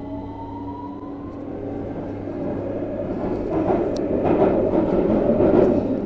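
London Underground train pulling away, heard from inside the carriage. A rising motor whine fades out in the first second or so, then wheel and track rumble grows steadily louder and is loudest near the end.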